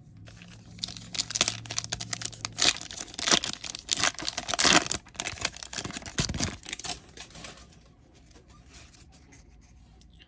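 A foil trading-card booster pack being torn open and its wrapper crinkled: a run of sharp crackling rips and rustles lasting about six seconds, then it stops.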